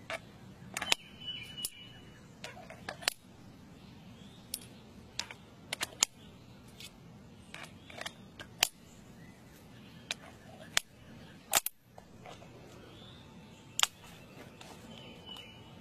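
Sharp metallic clicks, a dozen or so at irregular intervals, as cartridges are dropped one at a time into the chambers of a stainless revolver's swung-out cylinder and the gun is handled.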